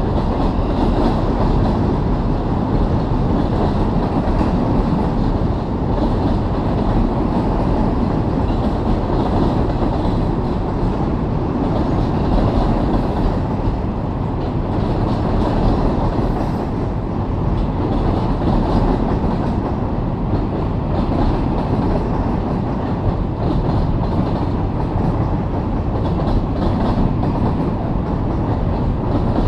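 Canadian Pacific freight train of double-stacked intermodal container cars rolling across a steel trestle bridge: a steady rumble of wheels on rail with faint repeated clicking.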